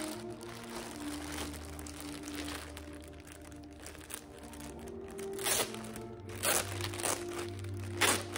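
Clear plastic garment bag crinkling as it is handled and opened, in sharp bursts that are loudest a little past halfway and again near the end, over soft background music with long held tones.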